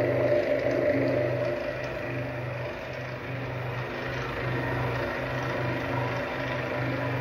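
Machinery of a 250-litre vacuum column still running: a steady motor hum that pulses about twice a second. It is louder for the first second and a half, then settles.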